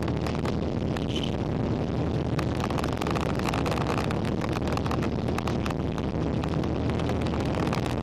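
Steady boat engine drone with wind buffeting and crackling on the microphone.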